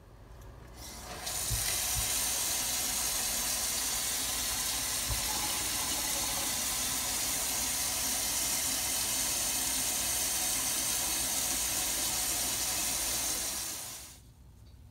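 Steady hiss of running water, fading in about a second in and fading out near the end.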